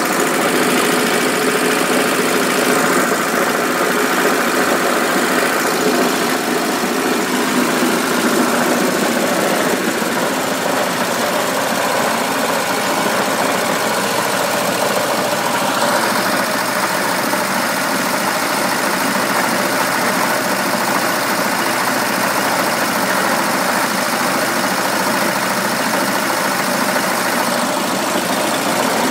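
Villiers MK25 stationary engine running steadily, belt-driving a 12-volt generator.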